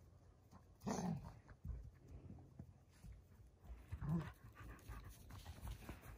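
Two Central Asian Shepherd (Alabai) puppies panting as they play-wrestle, with two short, louder dog vocal sounds, one about a second in and one about four seconds in.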